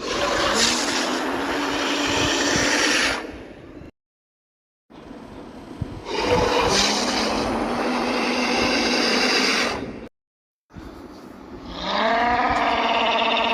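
Dinosaur roar sound effects: two long, harsh roars of about three to four seconds each, separated by short clean silences. A more tonal, drawn-out bellowing call begins about a second and a half before the end.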